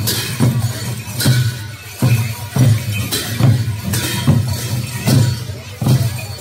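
Traditional Newar processional drums and cymbals playing a driving beat: repeated drum strokes, a few per second, with cymbal clashes ringing over them.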